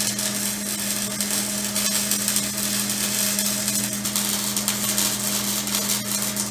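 Wire-feed welder arc crackling steadily as an exhaust pipe is welded, over a steady low electrical hum.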